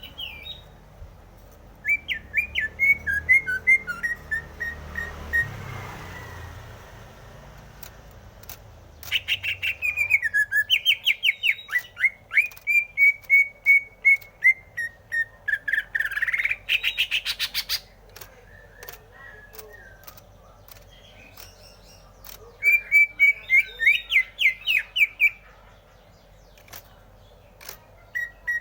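Greater green leafbird (cucak hijau) singing in three bouts of fast, whistled, trilling phrases with pauses between them; the middle bout is the longest and ends in a quick rising sweep.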